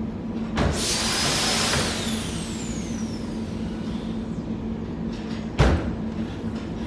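A burst of loud hissing, with a falling whistle in it, over a steady machine hum with a constant low tone, lasting about a second and a half; a single sharp knock near the end.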